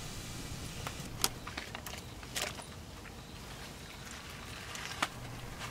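A few light clinks and taps of dishes and utensils at a camp cooking pot, over a faint, steady low hum.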